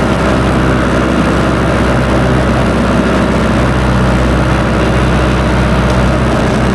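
Farm tractor engine running steadily under load, driving a manure spreader.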